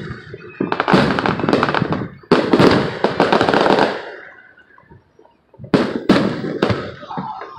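Fireworks exploding: sharp bangs, each followed by dense rapid crackling, in two long volleys. There is a brief lull about five seconds in, then a few more sharp bangs near the end.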